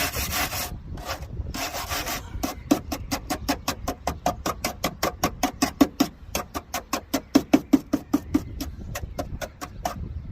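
Hand wire brush scrubbed back and forth over the bare steel of a car's rear wheel arch, taking off loose rust and old filler before filling. A few longer strokes first, then quick, even strokes at about five a second.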